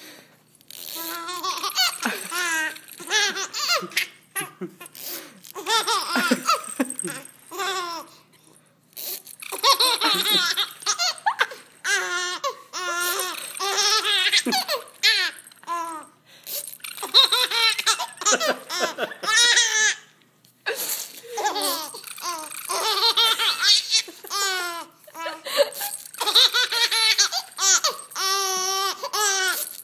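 Baby laughing hard and continuously in long bouts of high-pitched giggles, each bout broken by a short pause for breath.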